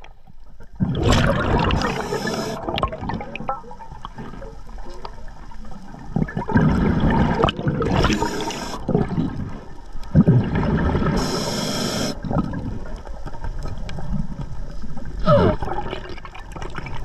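Scuba diver breathing underwater through a regulator: exhaled bubbles gurgling out in bursts a few seconds apart, with a hiss of air in between.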